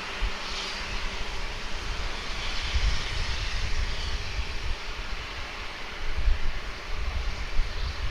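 Jet airliner engines running with a steady rushing hiss, while wind buffets the microphone with uneven low rumbles.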